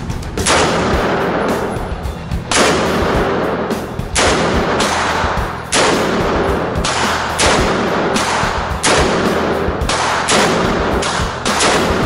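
AR-15 pistol firing single shots at an uneven pace, roughly one a second, each sharp report trailing a long echo inside an indoor range. Background rock music plays underneath.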